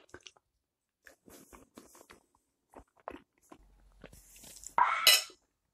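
A person eating porridge from a spoon: soft chewing and little wet mouth clicks. About five seconds in comes a loud, short burst of breath from the mouth, a cough with a hand held over the mouth.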